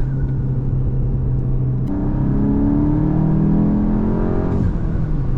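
Mk8 Volkswagen GTI's turbocharged 2.0-litre four-cylinder, on an E85 tune, running at a steady note, then rising in pitch for about two and a half seconds as it accelerates from about two seconds in, before dropping back to the steady note.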